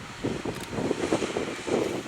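Jet engine noise from an Airbus A320 landing, mixed with gusty wind buffeting the microphone; it grows louder near the end.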